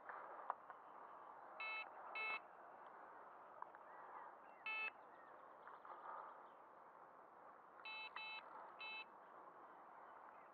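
Electronic carp bite alarm on a rod pod giving six short single beeps at uneven intervals, the sign of the fishing line moving over the alarm's sensor. They are isolated bleeps, not a continuous run.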